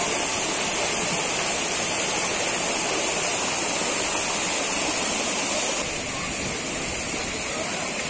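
Mountain stream cascading over boulders below a waterfall: a steady, even rush of water, dropping a little in level about six seconds in.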